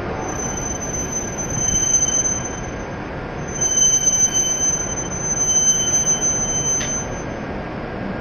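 E7 series Shinkansen train squealing as it slows to a stop: a steady high-pitched squeal over a low rumble, breaking off briefly a little past two seconds and cutting off suddenly about seven seconds in as the train halts.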